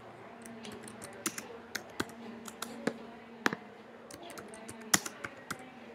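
Computer keyboard being typed on: about a dozen irregular key clicks, with a faint steady hum underneath.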